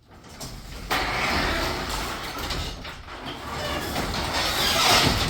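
Sectional garage door lifted open by hand, its rollers rumbling along the metal tracks. The rumble builds about a second in and grows louder toward the end. The door rises this easily because the torsion springs are tensioned correctly.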